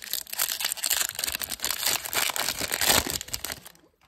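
Foil wrapper of a Topps Chrome trading-card pack being torn open and crinkled in the hands: a dense, uneven crackle that stops shortly before the end.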